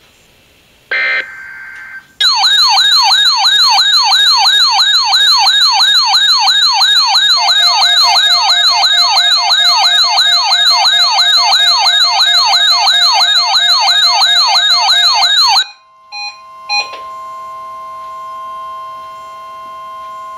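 Several weather radio receivers sounding their alert alarms together: loud, rapid warbling electronic tones, set off by the weather service's weekly test of the emergency alert system. Before them comes a short burst of digital code tones from the broadcast. After the alarms cut off there are a couple of beeps and then a steady warning tone.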